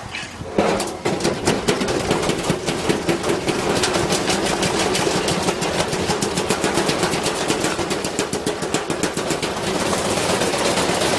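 Washing machine running with a heavy iron weight loose in its drum: the weight slams around inside in a fast, continuous hammering of metal impacts. It starts with a few heavy bangs about half a second in, and the banging grows a little louder near the end.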